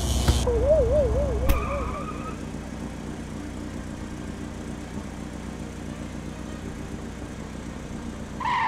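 Cartoon sound effects for a small car: a short wobbling warble and a couple of sharp clicks in the first two seconds, then a steady car engine running at a lower level.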